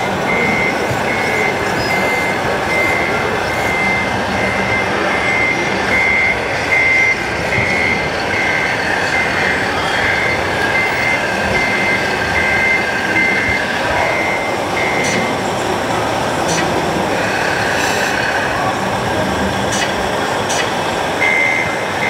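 Reversing beeper from an RC scale model vehicle's sound module: a steady high beep repeating about every two-thirds of a second. It stops about two-thirds of the way through and starts again near the end, over the constant murmur of a busy exhibition hall.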